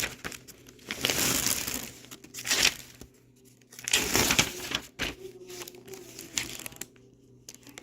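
Crinkling and rustling of packaging being handled, in irregular bursts through the first five seconds, then fainter.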